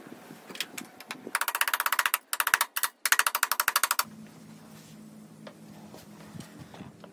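Very fast, even mechanical clicking in three bursts of about a second each, stopping abruptly, followed by a steady low hum.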